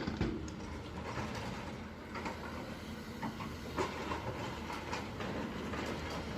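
Hyundai excavator's diesel engine running steadily, with irregular knocks and clatter of mud and stones being scooped and dumped.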